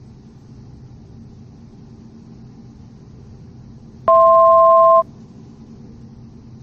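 Steady low hum of the Grand Caravan's PT6A turboprop in cruise, heard through the cockpit intercom audio. About four seconds in, a loud two-note electronic alert tone sounds for about a second and stops abruptly.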